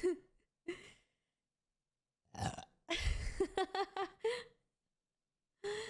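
A woman burping: a short belch at the start, then a long, loud belch about three seconds in lasting around a second and a half with a broken, gurgling pitch, and another starting just before the end.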